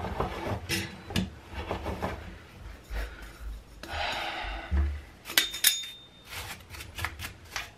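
Steel brake disc twisted back and forth on a pit bike's aluminium wheel hub, scraping and clinking, to shave off raised paint and aluminium high spots so the disc sits flat. There is a short metallic ring about halfway through, and a run of quick brush strokes over the hub near the end.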